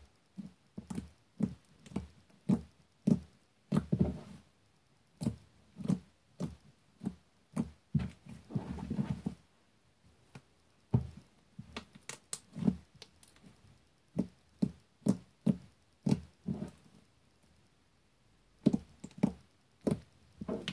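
Slime being squeezed and poked by hand: irregular wet pops and squelches, in runs of several a second, with a quieter gap about halfway and another shortly before the end.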